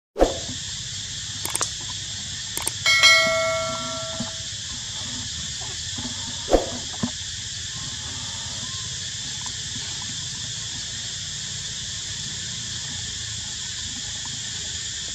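Steady, high-pitched drone of forest insects, broken by a few sharp snaps or knocks. About three seconds in comes a single bell-like ringing tone that fades over about a second and a half.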